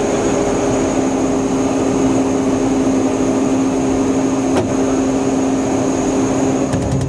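Jet aircraft in flight heard from the tanker during boom aerial refuelling: a steady drone of engines and rushing air, with a constant low hum and a faint high whine running under it.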